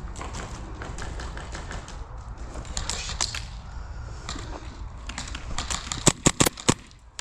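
Airsoft gunfire: scattered sharp pops and clicks, then a quick burst of about five loud shots about six seconds in.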